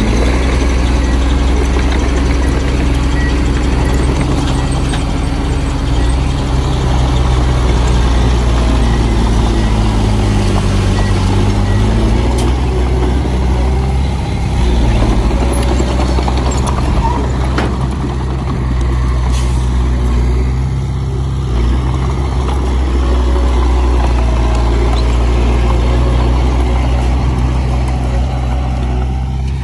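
Komatsu bulldozer's diesel engine running steadily under work, its pitch sagging and recovering once, about ten seconds in.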